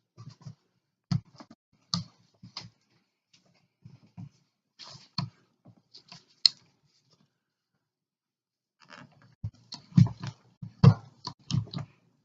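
Hand-pumped 10-ton hydraulic crimper being worked stroke by stroke as it squeezes a lug onto 3/0 gauge cable: irregular clicks and knocks from the pump handle and ram. They pause for a couple of seconds about two-thirds of the way in, then come back faster and louder near the end.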